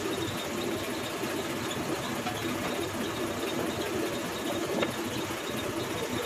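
Steady mechanical hum of workshop machinery running, with a faint click about five seconds in.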